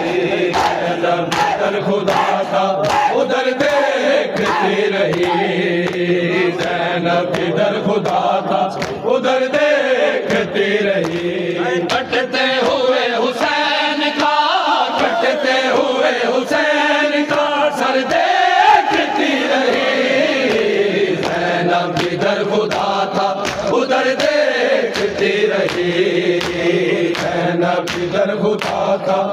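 Men's voices chanting a noha together in a lamenting melody, with a steady beat of open hands slapping bare chests in matam.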